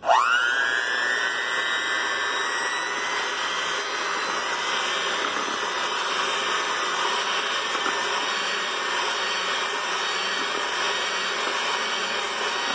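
Hamilton Beach electric hand mixer switched on, its motor whining up to speed within about a second, then running steadily as the beaters churn cake batter in a steel pot.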